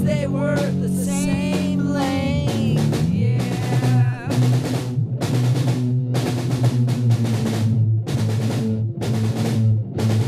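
Heavy rock song with a full drum kit. A wavering melodic line leads for the first few seconds, then hard drum hits come regularly over sustained low notes.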